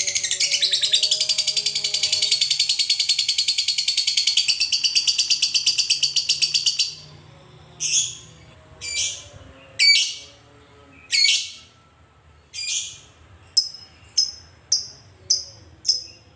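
Fischer's lovebird giving its long, rapid chattering trill (the 'ngekek') for about seven seconds, then breaking off into single shrill chirps about a second apart that come faster near the end.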